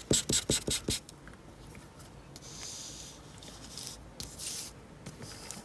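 Colouring tool rubbing on paper: quick back-and-forth strokes, about seven a second, for the first second, then a couple of slower, longer strokes.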